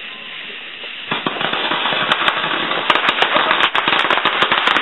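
A string of firecrackers going off: a dense, rapid crackle of many sharp pops that starts about a second in and keeps going, growing denser.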